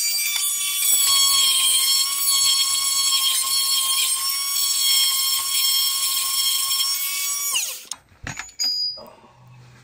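Handheld power tool running steadily with a high whine as it scrapes a steel chassis rail clean to bare metal for an earth strap. Near the end it is released and winds down, followed by a few knocks.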